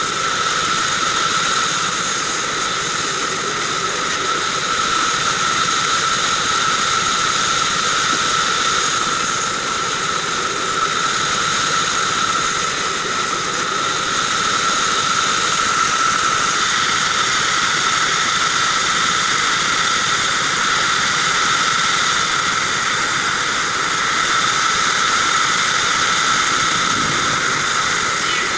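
Vertical band saw running as small wooden blocks are fed through its blade. It makes a steady high whine over the rough noise of the cut.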